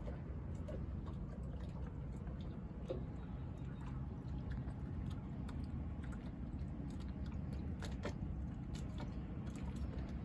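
Steady low mechanical hum of generators running, with many small scattered clicks and ticks over it.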